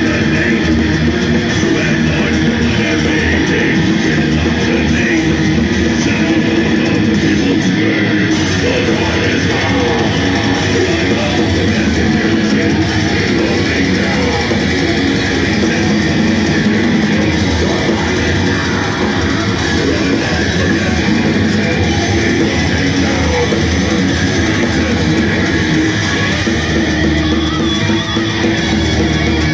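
Thrash metal band playing live: distorted electric guitars, bass and drums going full tilt, loud and dense, heard from the crowd.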